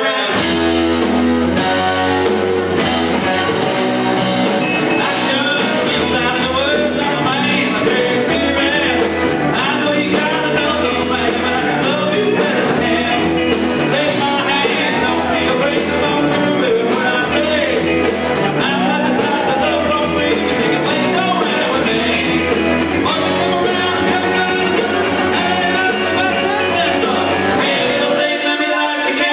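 Live rock band playing: electric guitars, electric bass and a drum kit, with a man singing. The low bass part drops out near the end.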